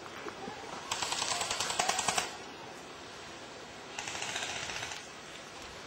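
Airsoft gun firing two full-auto bursts of rapid clicking shots, the first about a second and a half long and the second about a second long, a few seconds apart.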